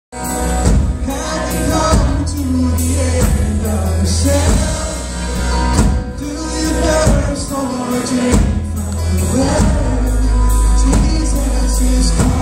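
Live contemporary worship band playing, a man singing the lead over drums, electric and acoustic guitars and keyboard, with a strong, steady bass and drum hits throughout.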